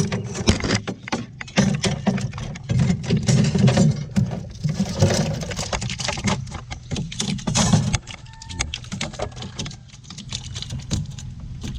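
Irregular knocking, slapping and rustling from a gill net and its catch being handled in a small boat, busy for about eight seconds and then sparser.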